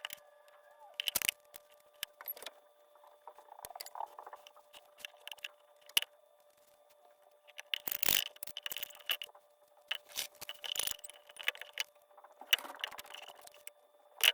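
Irregular clicks, knocks and short scrapes of wood pieces and hand tools being handled on a workbench, with no power tool running; the loudest scrapes come about eight seconds in and again around ten to eleven seconds.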